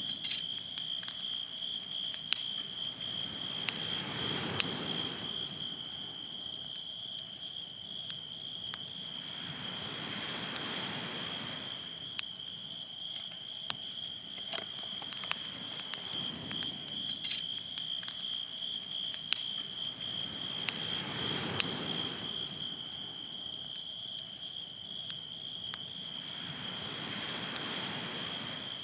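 Waves washing in about every five to six seconds, each a rushing swell of noise that builds and fades, under a steady high insect trill. Scattered sharp ticks sound throughout.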